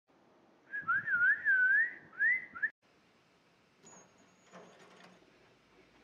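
A high warbling whistle that swoops up and down in pitch several times over about two seconds, then stops abruptly. After it there is only low room sound, with a faint thin high tone and a few light clicks.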